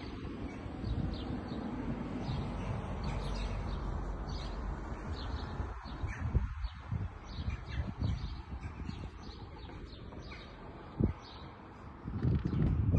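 Small birds chirping repeatedly over a steady low rushing noise.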